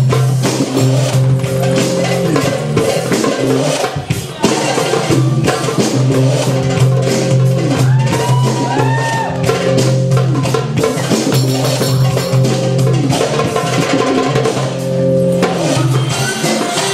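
Belly-dance music: a goblet drum (doumbek) played with quick, dense strokes over sustained low melodic notes, with a brief drop-out about four seconds in.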